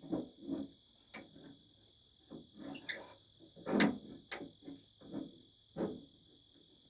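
Irregular metallic clicks and clunks of a door latch and its linkage being worked into place inside a 1957 Ford F100 door, with the loudest knock about four seconds in. A steady high cricket trill runs behind.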